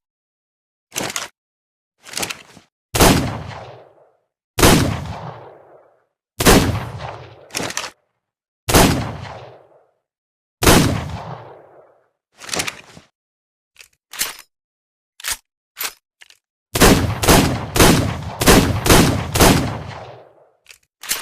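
Revolver gunshot sound effect: two short mechanical clicks, then five single shots about two seconds apart, each with a long echoing tail. More light clicks follow, then a fast string of about seven shots near the end.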